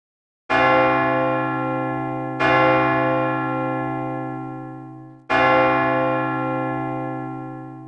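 A large bell struck three times, each stroke ringing out and slowly dying away with a wavering hum, sounding as the school bell that calls the children to class.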